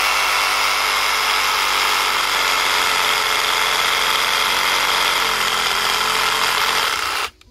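Batavia 18 V cordless reciprocating saw running steadily as it cuts through an oleander branch, then cutting off suddenly near the end.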